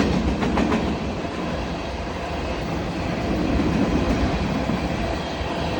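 Herzog train rolling past at speed: a steady rumble of wheels on rail, with a quick run of wheel clicks over rail joints in the first second.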